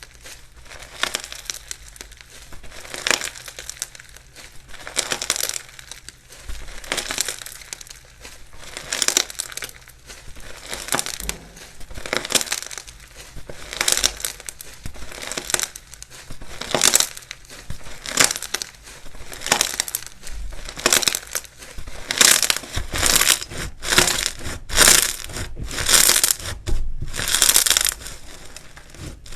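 Slime being squeezed and worked by hand, giving repeated bursts of fine crackling about once a second that come closer together and louder in the last third.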